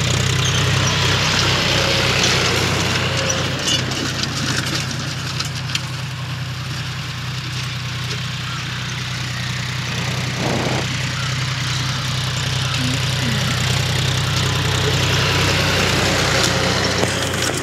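John Deere 5050D tractor's three-cylinder diesel engine running steadily under load while it pulls a disc harrow through dry soil. It is louder at the start, fades somewhat in the middle as the tractor moves away, and grows louder again near the end as it passes close.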